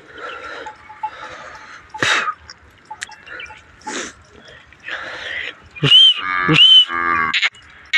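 Zebu cattle of a moving herd, with a few short breathy sounds, then a cow lowing loudly near the end in a call that breaks in two.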